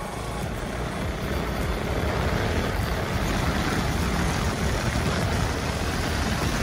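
Motorcycle riding noise picked up by a helmet-mounted phone: wind rushing over the microphone with engine and road noise underneath. It grows louder over the first couple of seconds, then holds steady.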